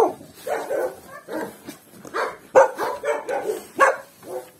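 Half-grown puppies barking and yipping, a string of short, separate barks.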